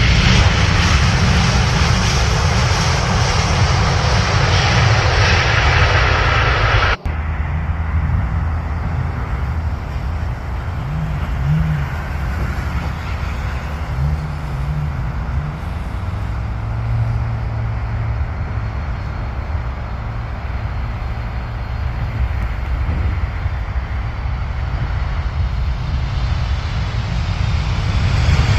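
Jet airliner engine noise, loud and full for about the first seven seconds. It breaks off abruptly into a quieter, deeper rumble.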